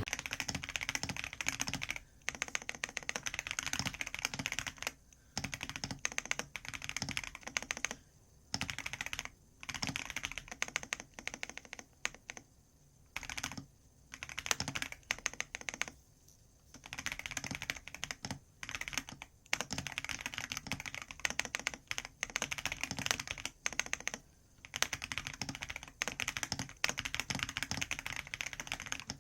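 Typing on a computer keyboard: quick runs of keystrokes broken by short pauses of about a second.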